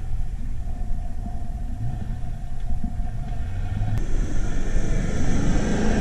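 Pickup truck engines running hard as the trucks climb soft sand dunes: a low rumble with a thin steady whine over it. About four seconds in the sound changes abruptly and grows louder and hissier.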